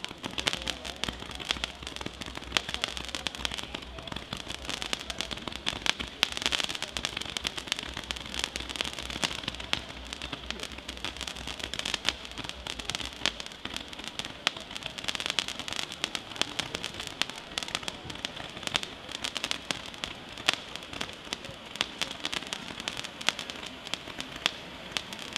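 Fireworks display: multi-shot fireworks firing in quick succession, a dense, unbroken run of sharp pops and crackles.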